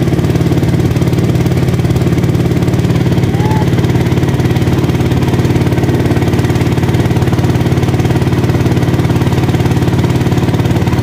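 Small boat motor running at a steady speed, driving the boat along.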